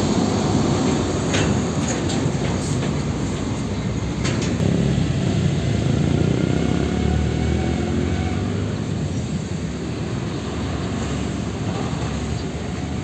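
Heavy diesel trucks on a road: the rumble and tyre noise of a tanker semi-trailer going by close, with a few light knocks in the first seconds. Then the diesel engine of a Hino tractor unit running as it approaches.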